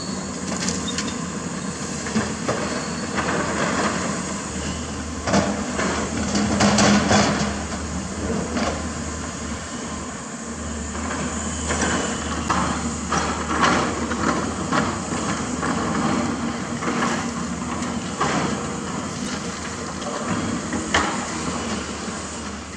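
Hydraulic excavator's diesel engine running steadily while its bucket dumps rock and dirt into a steel dump-truck bed, with repeated clattering knocks of stones landing, loudest about five to seven seconds in.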